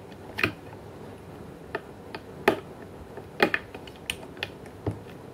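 Small metal clicks and ticks at irregular spacing, about nine of them, as circlip pliers spread a circlip and work it over the centre shaft of a Rotax 503 recoil pull-starter.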